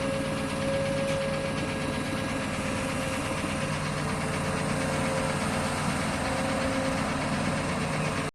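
Heavy equipment diesel engine running steadily at low revs, with a steady tone above it that comes and goes a few times.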